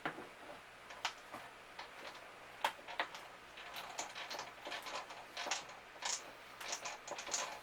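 Irregular small clicks and short scraping rasps of metal on plastic: a Phillips screwdriver working at the screws of a plastic interior panel in a refrigerator.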